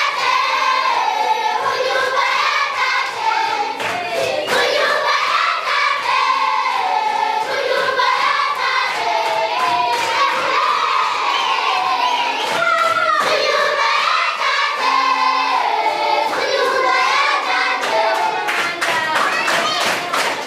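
A group of children singing together in chorus, with hand claps keeping time that become plainest near the end.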